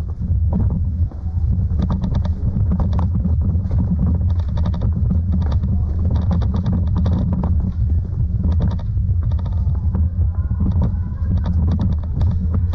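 Steady low rumble with clusters of short rattling clicks, typical of wind and road vibration on a camera riding on a bicycle.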